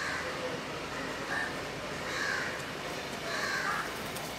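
A bird giving harsh, hoarse calls, about four of them roughly a second apart.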